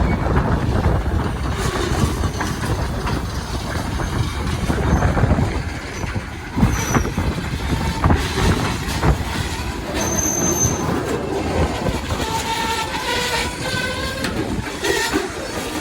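A train running past on the rails: continuous wheel and rail rumble with scattered knocks. A brief high metallic squeal comes about ten seconds in, and thinner squealing tones come and go near the end.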